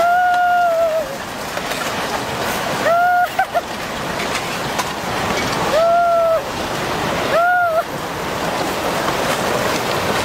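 Tsunami floodwater rushing and churning through a town, carrying broken timber and debris, a loud steady rush. Four times a short high pitched tone rises in, holds about a second and wavers off.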